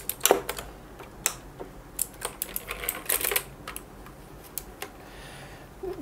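Scattered, irregular light clicks and knocks of a plastic mechanical gaming keyboard being handled and turned over in the hands.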